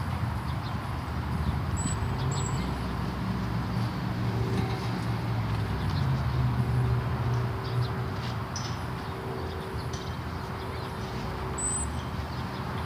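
Steady low outdoor rumble, with a few light clicks and three very brief high chirps about two seconds in and near the end.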